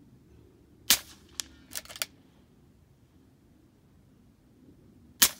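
.25-calibre Red Wolf PCP air rifle fired twice, about four seconds apart, each shot a sharp crack. Each shot is followed about half a second later by a faint click, then a short run of clicks as the bolt is worked for the next pellet.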